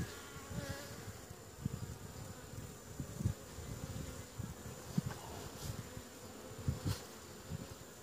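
Honey bees buzzing steadily over an open hive, with repeated low bumps on the microphone and two sharp clicks, about five and seven seconds in.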